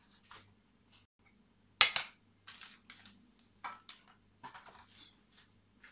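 A metal baking tray and dishes being handled and moved around on a kitchen counter: one sharp clank about two seconds in, then several lighter knocks and clinks.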